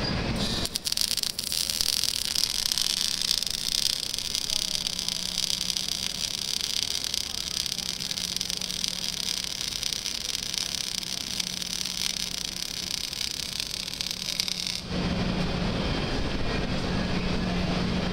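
MIG (gas metal arc) welding arc sizzling steadily. The arc strikes with a few crackles about a second in and cuts off abruptly near the end, leaving a low rumble.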